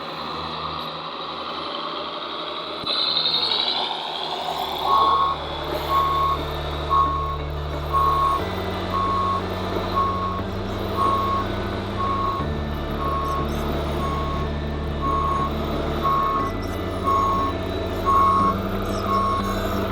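Reversing beeper of a radio-controlled model truck beeping about once a second over its low, steady engine sound, which shifts in pitch a few times. A brief rising whine comes before the beeping starts.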